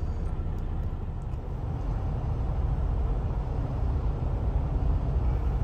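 Semi-truck's diesel engine running, heard from inside the cab as a steady low rumble that grows slightly louder about a second and a half in.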